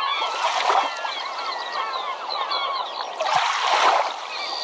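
Many birds calling at once, short chirping calls overlapping throughout. Two brief rushes of noise come through, one just under a second in and a longer one about three and a half seconds in.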